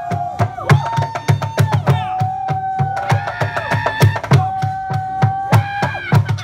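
Kitchen-utensil percussion: sticks drumming on plastic water jugs, a plastic barrel and metal pots and pans, a steady deep beat with many sharper clanks between. A held melody note, sliding into each new pitch, runs over the drumming.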